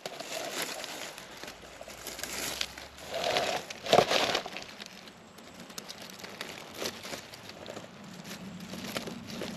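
Dry leaf litter rustling and crackling as mushrooms are picked from among the leaves, with a sharper crack about four seconds in.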